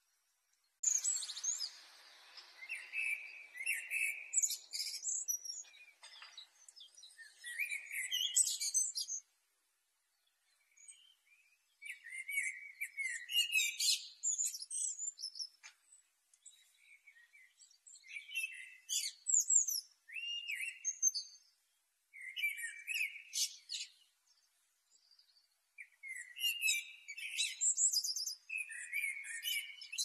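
Male common blackbird singing: separate phrases of low fluty warbling, each running into a high, squeaky twitter, with pauses of a second or two between phrases.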